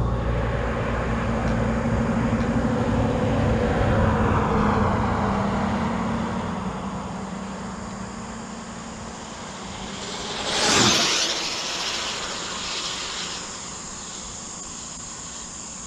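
Traxxas Slash RC car with a Castle 1515 brushless motor on 6S on a flat-out speed run: a steady motor whine and rush that fades, then a sharp rising-and-falling whoosh as it shoots past close by, about eleven seconds in, fading away after.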